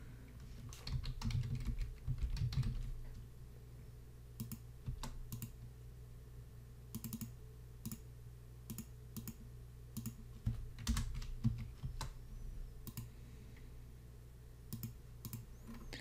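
Typing on a computer keyboard: a quick run of keystrokes in the first few seconds, then scattered single key taps.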